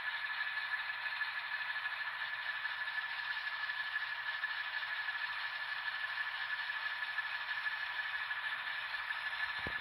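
N scale model train rolling in reverse over the track: a steady whirr of metal wheels on rails and the locomotive's motor, with a thin steady high whine. A soft low knock comes near the end.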